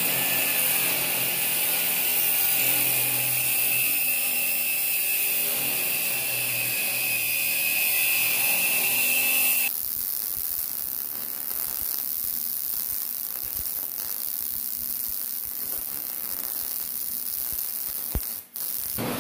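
Angle grinder cutting steel: a steady high whine that sags slightly just before it stops about ten seconds in. Then wire-feed (MIG) welding on the steel frame, a steady hiss with a couple of short clicks near the end.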